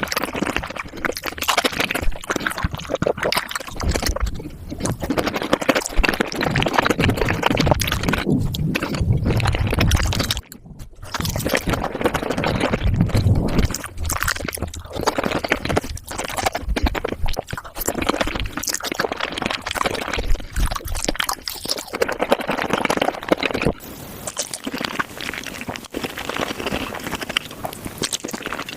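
Close-miked wet chewing, smacking and slurping of raw shrimp, a dense run of squelchy mouth clicks, broken twice by abrupt changes where one eater's sounds give way to another's.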